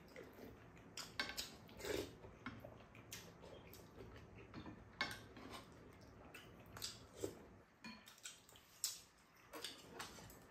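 Spoons and chopsticks clinking and scraping against ceramic bowls during a meal, scattered light clicks with soft eating sounds in between.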